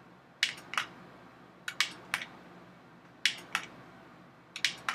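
Sharp clicks in pairs, a pair about every second and a half.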